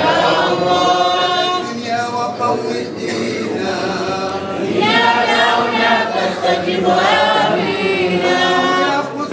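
A group of men singing a devotional chant a cappella, in long held phrases with no instruments. The singing swells again about halfway through.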